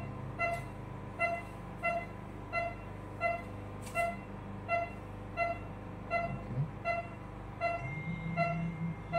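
Patient monitor's pulse oximeter beeping steadily, a short electronic tone about one and a half times a second, one beep per heartbeat of the patient's pulse.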